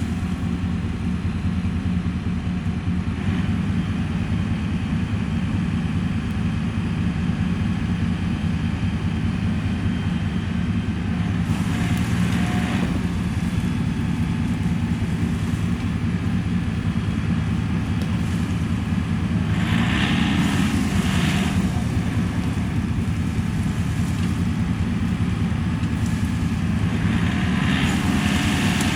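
Tractor engine running steadily, with a few brief spells of added higher-pitched noise.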